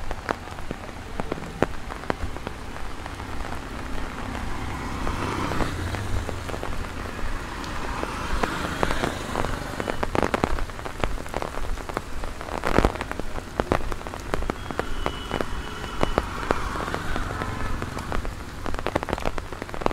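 Steady rain falling on a wet street and pavement, with many sharp, close raindrop ticks, the loudest about thirteen seconds in.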